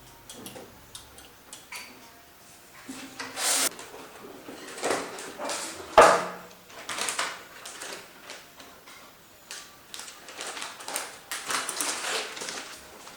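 Hands handling computer parts and packaging: scattered clicks, short scrapes and rustles, with one sharp knock about six seconds in.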